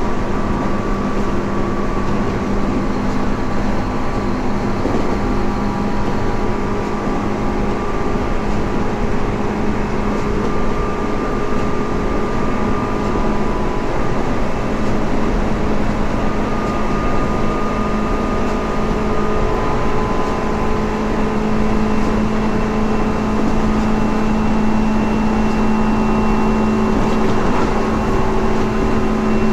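Tobu 9000 series electric train running at a steady speed: a constant rumble of wheels on rail with steady motor whine tones over it.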